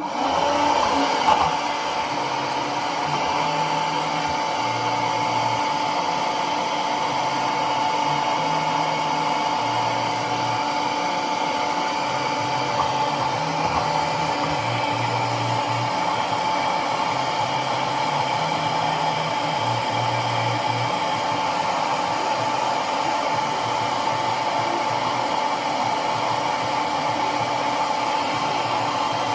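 Handheld hair dryer running steadily, switched on right at the start, with a steady whine in its noise. A song's bass line sounds faintly underneath.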